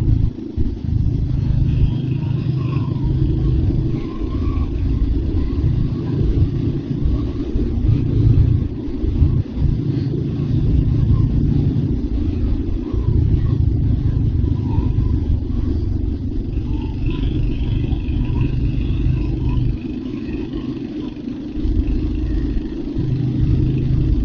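Royal Enfield Hunter 350's single-cylinder engine running as the motorcycle rides along, its loudness rising and falling several times as the throttle opens and eases.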